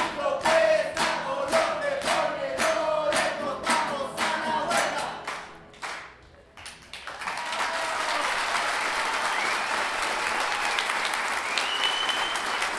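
Several voices chant in unison over a regular beat of sharp hits, about two a second. The chant dies away about six seconds in and is followed by steady applause from an audience.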